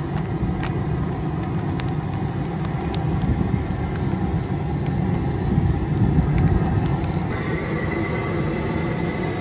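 Propane jet burner of an outdoor crawfish cooker running under the boil pot with a steady low rumble, with a few light clicks over it.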